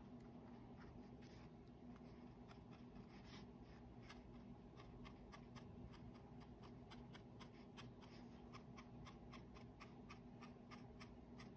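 Faint, quick taps of a small paintbrush dabbing dots of ink onto watercolor paper, irregular and a few a second, over a faint low steady hum.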